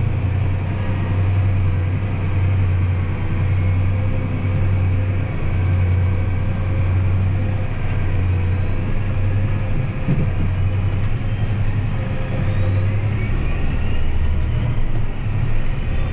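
Large diesel farm machine, a combine or a tractor, with its engine running steadily under a constant deep drone.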